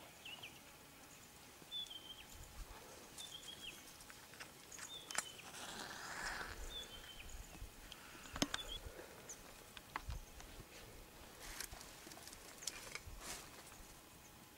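Quiet bush ambience: a bird repeats a short, high, slightly falling call every second or so, with scattered sharp clicks and a brief rustle about halfway through.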